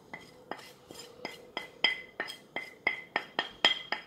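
A quick run of a dozen or so ringing clinks, about three a second, as a ceramic plate of ground spices is knocked against the rim of a glass mixing bowl to empty it.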